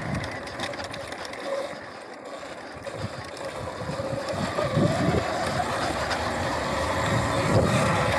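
Sur-Ron Light Bee X electric dirt bike being ridden on dirt: a thin electric-motor whine rises in pitch about halfway through and then holds, over a rough rumble of the bike and wind on the microphone.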